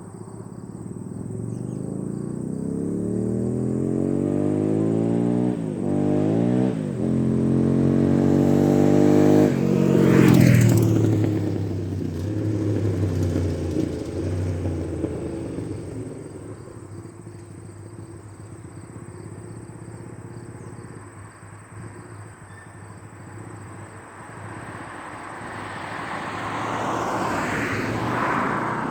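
Honda CB450 scrambler's parallel-twin engine accelerating hard through the gears, with two brief dips at the shifts. It climbs in pitch and loudness as the motorcycle approaches, drops in pitch as it passes, and fades away. Near the end the engine comes back, growing louder again.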